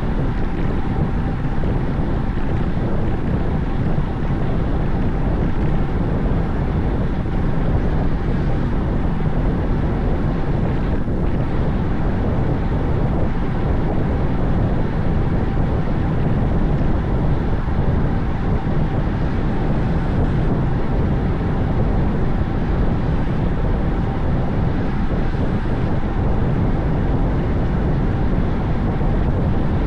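Steady wind noise buffeting the microphone of a cyclist riding at speed, a dense low rush that never lets up.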